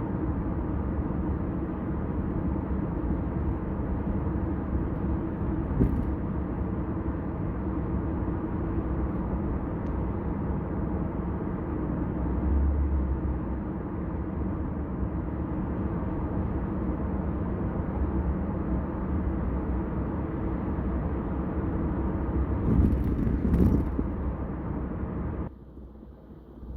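Kia K5 sedan driving at highway speed: a steady rumble of tyre, road and engine noise, with a couple of brief knocks. The noise drops sharply about a second before the end.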